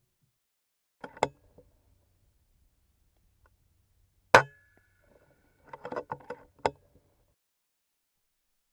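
FX Impact M3 .22 PCP air rifle: a quiet click about a second in, then one sharp, loud shot crack about four seconds in with a faint ringing tone after it, followed a second and a half later by a quick run of metallic clicks and rattles.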